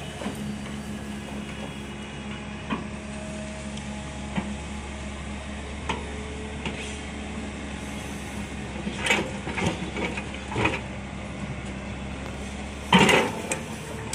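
L&T-Komatsu hydraulic excavator's diesel engine running at a steady drone, with scattered knocks from the machine. Several seconds in there is a run of clattering as a bucketful of soil and stones drops into the steel bed of the tipper truck, and near the end a louder crunching clatter as the bucket bites back into the soil pile.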